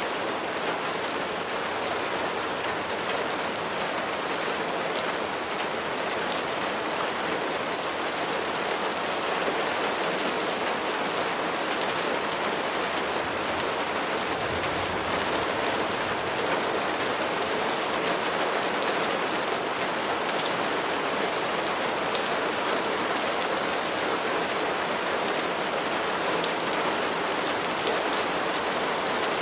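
Steady rain falling, an even hiss with many fine drop ticks throughout.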